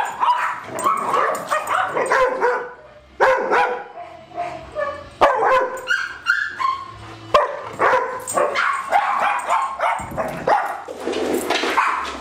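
Dogs barking, yipping and whining in rough play, a rapid string of short calls that eases off briefly about three seconds in and then picks up again.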